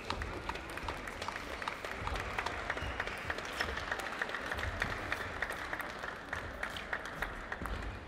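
Table tennis rally: the celluloid ball clicks sharply off bats and table several times a second, over steady crowd noise with clapping in the hall.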